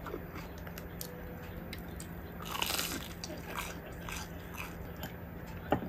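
Close-up biting and chewing of crispy batter-fried eggplant: one loud crisp crunch about two and a half seconds in, then softer crunches as it is chewed. A sharp click near the end.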